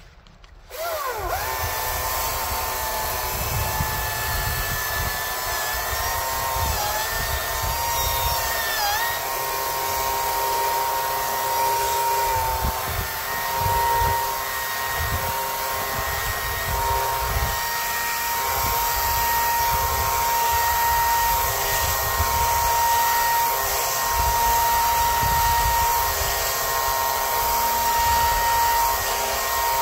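A power tool starts about a second in and runs steadily with a whine. Its pitch dips briefly twice, around seven and nine seconds in.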